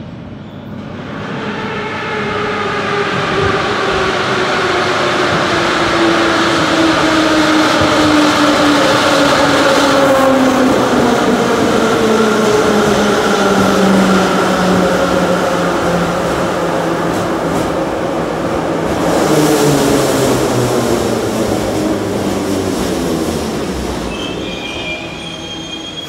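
A Metrovagonmash 81-717/714 metro train pulls into the platform and slows to a stop. Its traction motors whine, falling steadily in pitch as it brakes, with a short rush of hiss about three-quarters of the way through.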